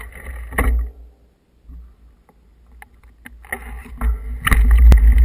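Wind buffeting the microphone of a moving camera, with scattered knocks and rattles. Sparse at first, the deep wind rumble turns loud about four and a half seconds in.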